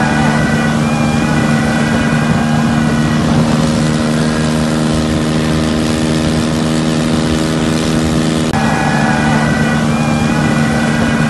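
Tractor diesel engine running steadily under load, pulling a trailer heavily loaded with sugarcane.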